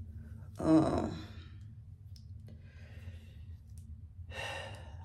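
A woman's long voiced sigh, falling in pitch, about half a second in, followed by two quieter breaths, the last near the end.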